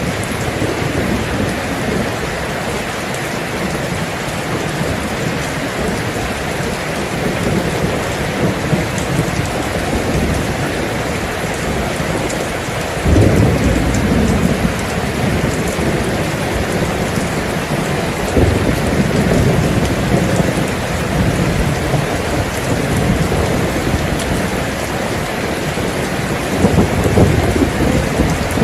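Steady heavy rain falling, with rolls of thunder. A loud rumble comes in suddenly about halfway through, and more rumbles follow later and near the end.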